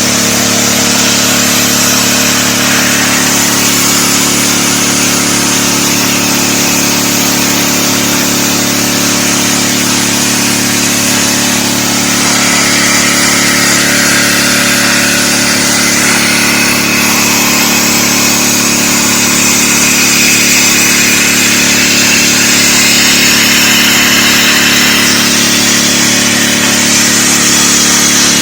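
DeWalt 3600 psi gas pressure washer running steadily, its engine note under the loud hiss of the high-pressure water spray. The hiss shifts in tone now and then as the spray moves.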